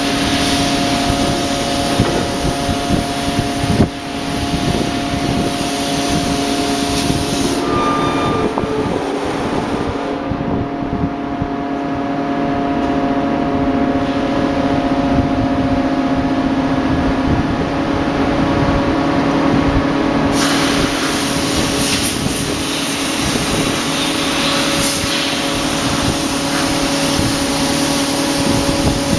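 Bar forging machine running: a steady industrial hum with several held tones under a loud hiss, and a sharp knock about four seconds in. The high hiss drops away for about ten seconds in the middle, then returns.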